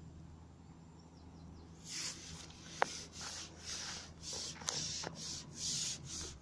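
Repeated short rubbing and rustling close to the microphone, two or three scrapes a second, starting about two seconds in, with a couple of sharp clicks among them.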